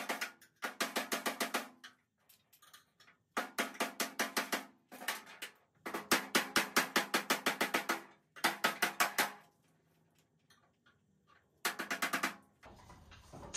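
Bursts of rapid metal-on-metal tapping, about ten sharp strikes a second: a screwdriver worked against a stuck chrome hinge screw on a steel vending-machine door. About six bursts, each lasting one to two seconds, with short pauses between them.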